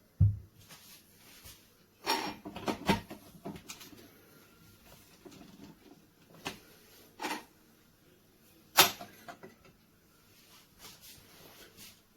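Scattered knocks and clicks of hard objects being handled: a low thump just after the start, a short clatter a couple of seconds in, and single clicks later, the loudest a sharp click about nine seconds in.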